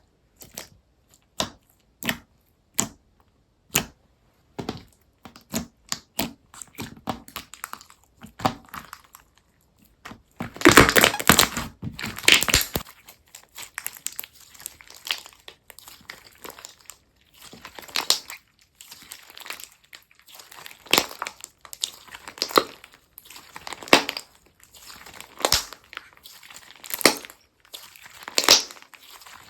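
Textured slime being pressed and squeezed by hand, making crisp crackling clicks. The clicks come singly about a second apart at first, then grow denser, with a long, loud crinkling stretch about a third of the way in and regular crackly squeezes after it.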